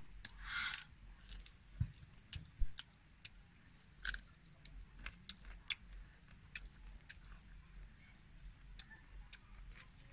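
Insect chirping: short high chirps in pairs and quick runs of up to four, repeating every second or two. Scattered faint clicks and a couple of soft knocks sit under them.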